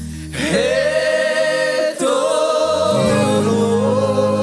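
Sertanejo song sung by voices in harmony over instrumental backing, with a long note held with vibrato on the word "paz".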